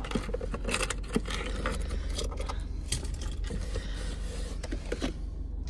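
Small plastic and metal clutter (lip balms, hair clips, bottles) clicking, rattling and scraping as it is pulled out by the handful and dropped onto a car seat, over the steady low hum of the running car.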